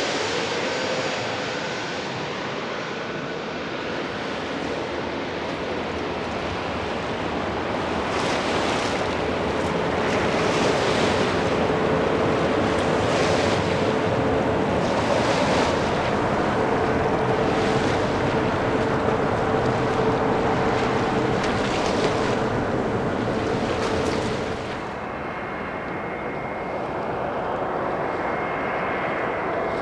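Airbus A321neo jet engines on landing approach: a steady wide rush of engine noise with a steady hum, and short washing hisses every two to three seconds. About 25 s in, the sound drops and a thin high whine from the next approaching A321neo takes over.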